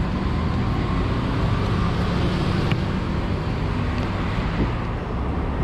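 Road traffic running by: a steady drone of engines and tyres, with one short click a little under three seconds in.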